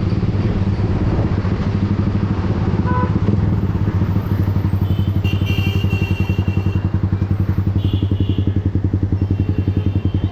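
Yamaha R15 V3's single-cylinder engine running steadily through an aftermarket exhaust, with a low rhythmic pulse that becomes more distinct about four seconds in. A short high beep sounds about three seconds in.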